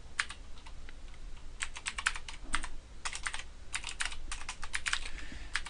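Computer keyboard typing: short runs of quick keystrokes broken by brief pauses.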